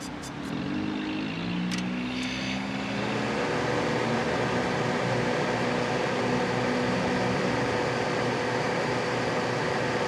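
Vintage White-Westinghouse dehumidifier starting up with its cover off, its Embraco FF 8.5 BK reciprocating compressor and fan coming on. A few clicks come in the first couple of seconds, then a steady mechanical hum that grows louder about three seconds in and runs on evenly.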